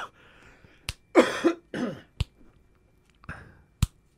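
A man coughing and clearing his throat, with three sharp snapping clicks spaced about a second and a half apart.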